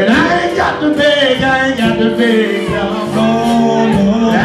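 Two men singing live into microphones with a blues band behind them, their voices sliding between notes and holding long notes.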